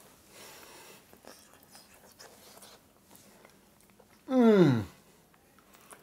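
A man chewing a mouthful of baked potato, with small soft clicks. About four seconds in comes a short, loud vocal exclamation that drops sharply in pitch, a reaction to the pungent horseradish sauce.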